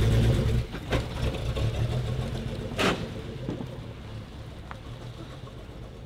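Car engine running as the car pulls away and drives off, loudest at first and fading steadily. There are a couple of short sharp noises, about one and three seconds in.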